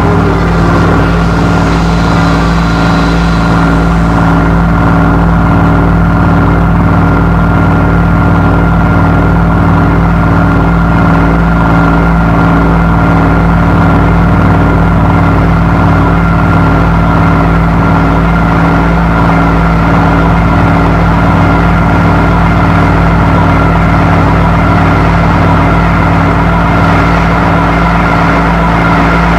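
Power electronics noise track: a loud, steady electronic drone with a deep hum and several held tones stacked above it, under a dense noisy layer. A brighter hiss on top fades out about four seconds in.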